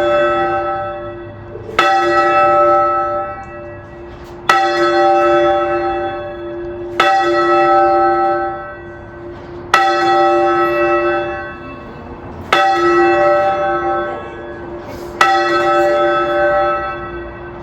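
A single church bell rung repeatedly from the ringing chamber below: six strikes about every two and a half seconds, each ringing on into the next.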